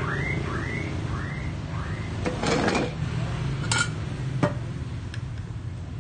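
Metal paint tins being handled in a stacked rack: four short rising squeaks of tin rubbing against tin, then a scrape and two sharp clinks of cans knocking together.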